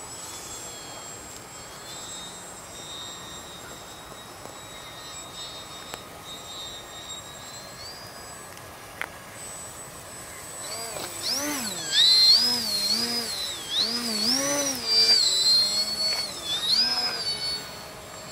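Radio-controlled Yak-55M model plane's motor and propeller whining. It is faint at first, then from about eleven seconds in it grows loud, its pitch swinging up and down several times before it fades near the end.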